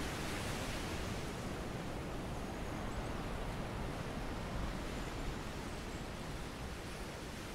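Steady rushing noise of wind and sea surf, with a low rumble underneath.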